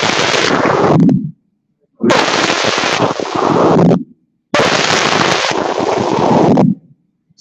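A large group of schoolchildren reciting a Hungarian poem aloud in unison, in three lines of about two seconds each. The voices cut off to dead silence between the lines.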